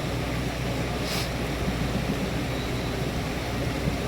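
Steady rush of fast-flowing floodwater after heavy rain, with a brief higher hiss about a second in.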